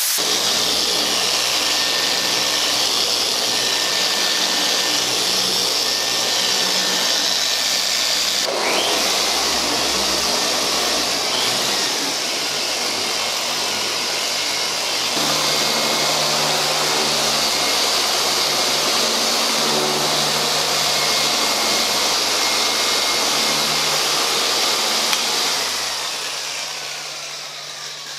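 Steady whirring of detailing power tools, including a dual-action orbital polisher running on the car's paint. The hum changes pitch twice, and the noise fades down near the end.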